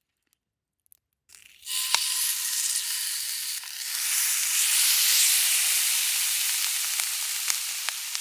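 Salt-koji-marinated meat sizzling loudly in a hot frying pan, with a few sharp pops. It starts suddenly after a moment of near silence and cuts off abruptly near the end.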